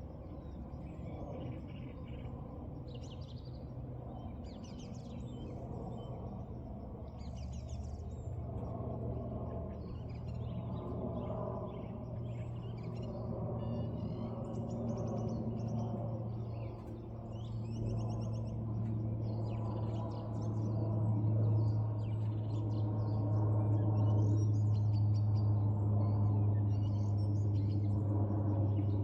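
Small birds chirping and twittering over a low, steady hum that grows louder through the second half and becomes the loudest sound near the end.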